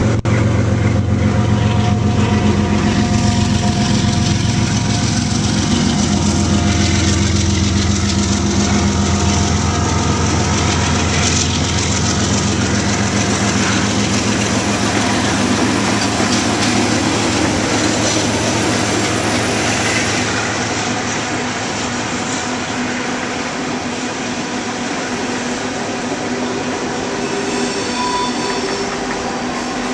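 Union Pacific diesel locomotives passing close by, engines running loud for the first twenty seconds or so, then fading as covered hopper cars roll by with steady wheel-on-rail noise and a thin wheel squeal near the end.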